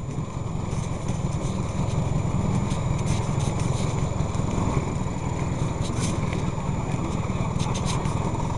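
Scooter engines idling in a steady low rumble, getting a little louder over the first couple of seconds.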